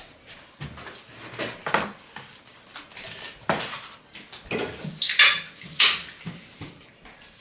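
Irregular clinks, taps and rustles of eating at a table: dishes, cutlery and food packaging being handled, with the sharpest clatters about five and six seconds in.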